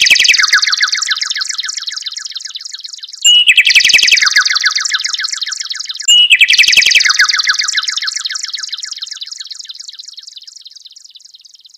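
Electronic keyboard's bird-call sound effect: a rapid, evenly pulsed warbling trill with two pitches. It is played twice more after a trill already sounding, about three seconds apart, each starting loud and slowly fading, the last one dying away over about six seconds.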